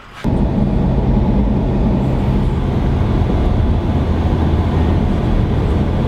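A vehicle's engine and road noise heard from inside the cabin while driving: a steady low drone that cuts in suddenly at the start.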